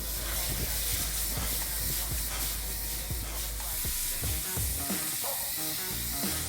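Water spraying from a hose nozzle onto an HVAC unit's coil during a wash, a steady hiss. Background music plays underneath.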